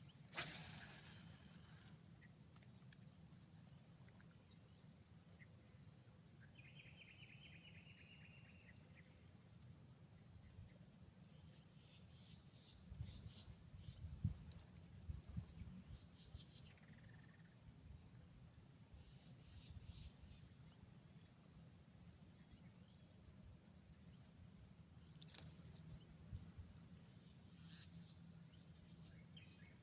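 Faint, steady high-pitched drone of insects such as crickets, with a few soft knocks of handling in the middle.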